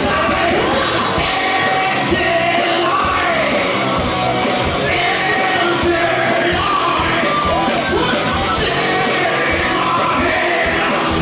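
Live rock band playing: amplified vocals over a steady drum beat, bass guitar and electric guitar through a PA system.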